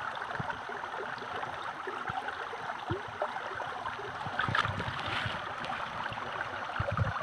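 River water running steadily, with a few soft knocks and rustles from a wet mesh net bag being handled among the rocks.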